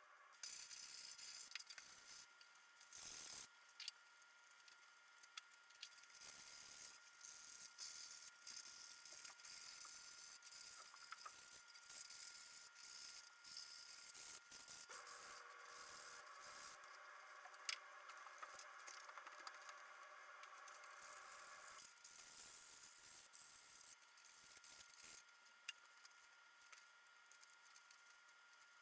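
Faint, irregular scratching and rubbing of sandpaper worked by hand over 3D-printed PLA helmet parts, with small rattles as the parts are handled.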